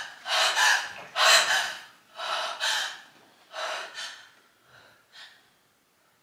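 A woman's acted, frightened gasping breaths, a quick series of sharp inhales and exhales that grow fainter and further apart until they die away about five seconds in.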